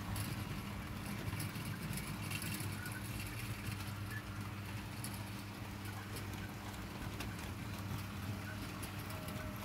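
OO gauge model trains running on sectional track: a steady electric hum with light, irregular clicking of wheels over rail joints and points.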